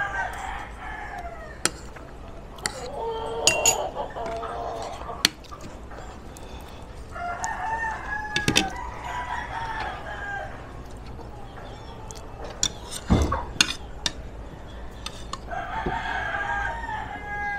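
A rooster crowing several times, each crow drawn out over a couple of seconds. Between the crows, a spoon and fork clink sharply against a plate.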